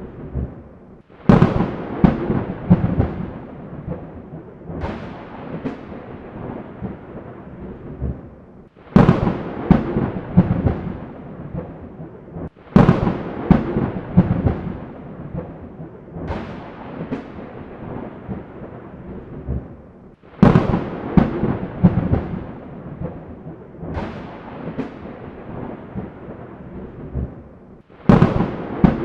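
Thunderclaps in a rainstorm: about five sudden loud cracks, each crackling and rolling off over several seconds, over a steady hiss of rain.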